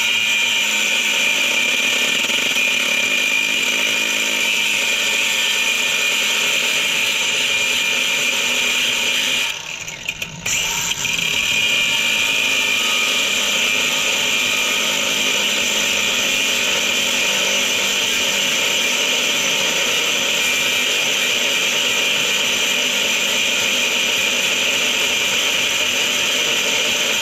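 Power tool with a cut-off disc grinding through a car's metal flywheel, a loud, steady, high-pitched grinding whine. It stops briefly about ten seconds in, then picks up again.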